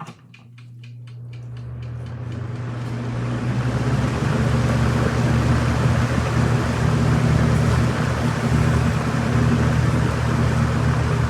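1993-94 Robeson 20-inch box fan starting up: a few clicks, then the motor hum and the rush of air from the blades build over about four seconds and settle into a steady, loud drone.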